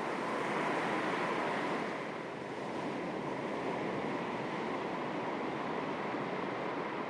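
Gentle sea waves lapping on the shore: a steady, soft wash of surf that eases slightly about two and a half seconds in, then swells again.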